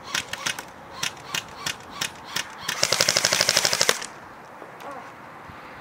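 Airsoft rifle firing: spaced single shots, then a rapid full-auto burst lasting about a second and a half that cuts off suddenly.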